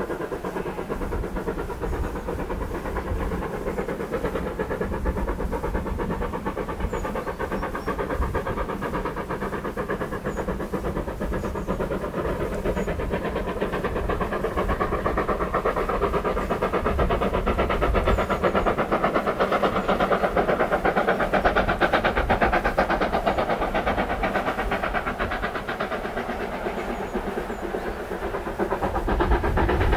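Two steam locomotives double-heading a train and working hard up a grade, their exhausts giving a continuous chuffing beat. It grows louder toward the middle as the train draws nearer, then eases near the end.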